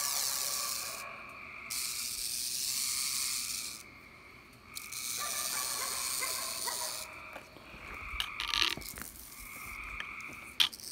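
Timber rattlesnake rattling: a high, dry buzz that breaks off briefly and starts again three or four times, with a few sharp clicks near the end.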